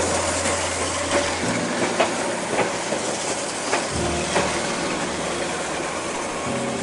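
Eizan Electric Railway 900 series 'Kirara' electric train running slowly past at close range: a steady rolling noise with a hiss and sharp clicks of the wheels over the rail joints, one every half second to a second.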